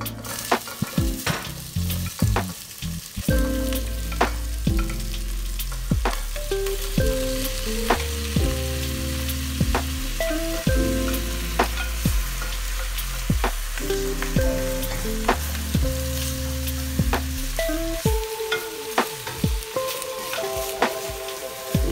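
Beef chunks, onions and garlic sizzling in a stainless steel pot as a wooden spatula stirs them, scraping and knocking against the pot's side every second or so. Soft background music plays underneath.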